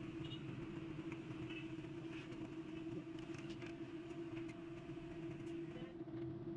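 Faint light clicks and taps of a fuel pump assembly and its retaining ring being handled and seated on a fuel tank, over a steady low hum with a held tone.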